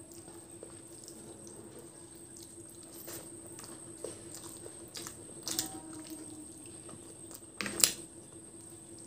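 Wet squishing and sticky clicks of eating rice and chicken curry gravy by hand: fingers mashing and mixing rice into gravy on a plate, and mouth sounds. The clicks come a few at a time, the loudest near the end.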